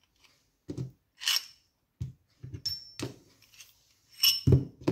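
Small steel rear-axle parts (nuts, spacers and the hub cup) being set down one by one on a concrete floor. The result is a series of separate metallic clinks and knocks, several ringing briefly, with the loudest near the end.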